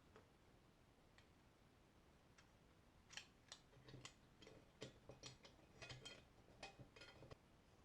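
Faint, light clicks and taps of blowtorch parts being handled and fitted together during reassembly. They come in an irregular cluster in the second half over a quiet room background.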